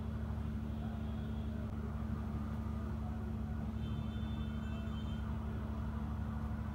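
Steady low hum with no speech.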